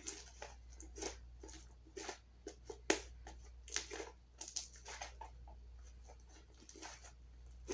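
Clear slime being kneaded and stretched by hand, giving faint, irregular sticky clicks and pops as it is still activating, over a low steady hum.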